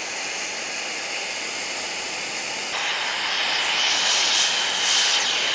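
Brazing torch flame hissing steadily as it heats a copper pipe joint while brazing rod is fed in. It grows louder a little under three seconds in.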